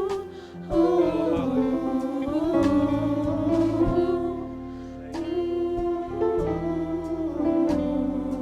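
Live church worship music: sustained chords with plucked guitar notes, played softly behind the service.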